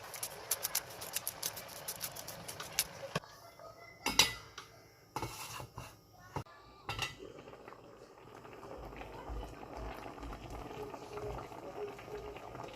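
Metal utensils and cookware clinking and knocking, a quick run of light clicks followed by a few louder knocks. In the second half a steady simmering noise builds as the spicy braising liquid comes toward the boil.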